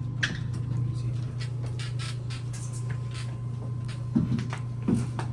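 OTIS elevator car giving a steady low hum, with scattered light clicks and two short louder knocks near the end.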